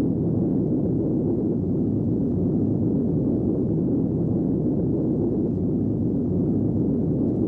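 Steady low rumbling noise, even and unbroken, with nothing above a dull low register: an ambient soundtrack rumble.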